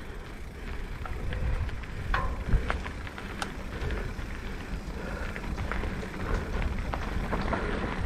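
Mountain bike rolling along a dirt singletrack: tyres crunching over the dirt, with scattered small clicks and rattles and a steady low rumble.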